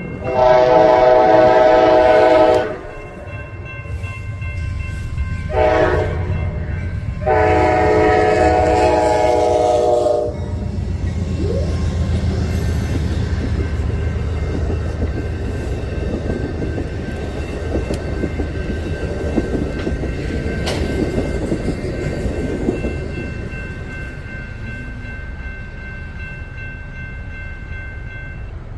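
Locomotive horn sounding a long blast, a short blast and another long blast, then the train passes with steady low noise and wheel clatter, growing quieter over the last few seconds.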